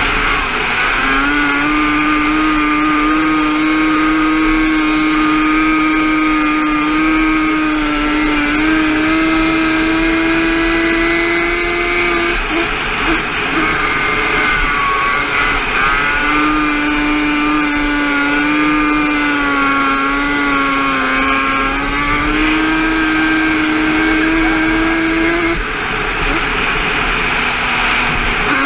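A racing quad's engine heard from on board, held at high revs with a steady pitch down the straights. The throttle comes off and the engine revs back up through the turns, once about midway and again near the end.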